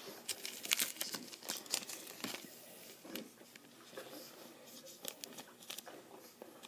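Quiet, irregular rustling and crinkling in short clusters as trading cards and foil pack wrappers are handled.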